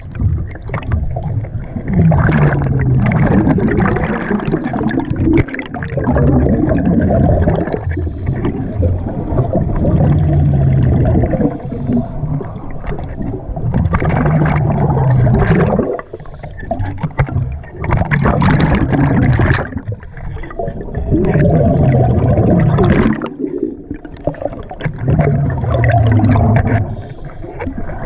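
Diver breathing underwater through a regulator: exhaled bubbles gurgle and rumble past the microphone in rounds about every four seconds, with quieter inhalations between.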